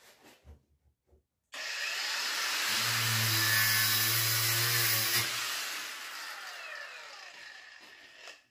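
A power tool's motor starts abruptly about a second and a half in and runs loudly for a few seconds, with a deep hum partway through. It then winds down with a falling whine.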